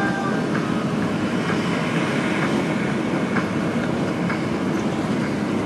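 Steady running noise of a moving train heard from inside the carriage, with faint regular clicking of the wheels over the rails.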